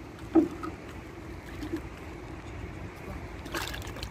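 Small fish being dropped into a plastic bucket of water: one loud short plop about half a second in and a brief clatter near the end, over a steady low rumble.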